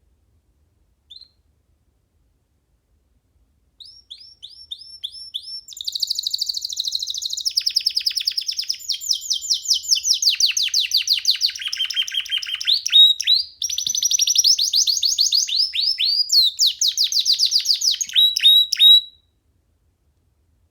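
Young canary singing: a single chirp about a second in, then a long song of fast, high repeated trills that switches to a new phrase every second or two and breaks off near the end.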